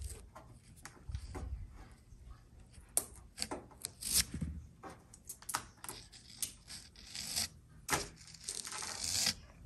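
Scissors snipping at a plastic zip tie and hands handling a ribbon cable in a metal electric-fireplace housing: a string of separate sharp clicks with rustling in between, and a longer rustle near the end.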